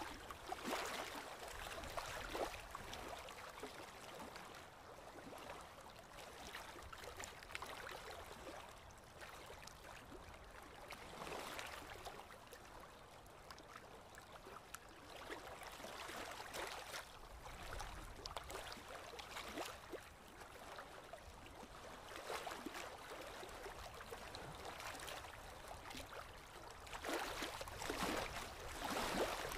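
Heavy rain pouring down: a steady hiss that swells louder in waves every few seconds, most strongly near the end.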